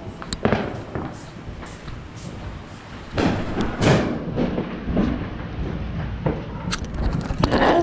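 Fireworks going off: scattered sharp pops and crackles, louder for a stretch about three seconds in.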